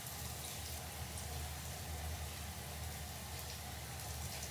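Frying pan sizzling steadily: canned mackerel in miso frying in olive oil with garlic and chili, with faint fine crackles over a low steady hum.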